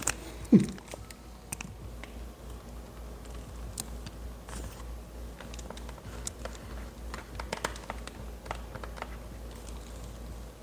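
Scattered light clicks and taps of plastic packaging and figure parts being handled during an unboxing, with one short sound sliding down in pitch about half a second in.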